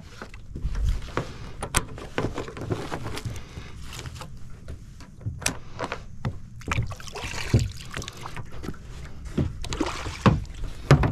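Kayak handling noise: irregular hard knocks and clicks with rustling, over a low rumble.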